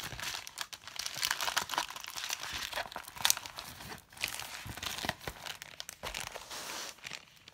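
Plastic packaging crinkling and rustling under the hands as a rolled diamond-painting canvas in its plastic sleeve is handled, in irregular crackles with a short lull about four seconds in.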